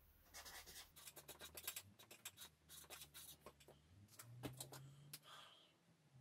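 Felt-tip marker writing a word on a paper easel pad: a quick run of short, faint strokes that stops about five and a half seconds in.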